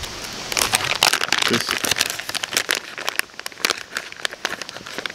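Crinkling and crackling of a plastic soft-bait package being handled in the hands, a dense run of quick rustles.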